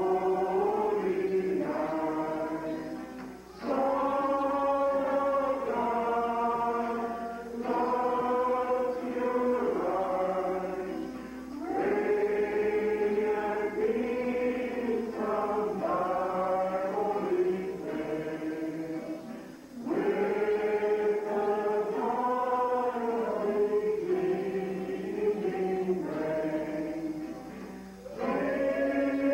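Small mixed choir singing a Christmas carol in harmony, in long held phrases with short breaths between them.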